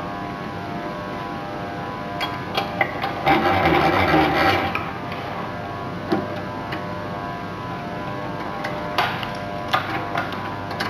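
Tensile pull-out test rig running with a steady hum, with scattered clicks and a rasping scrape that lasts about a second and a half, about three seconds in.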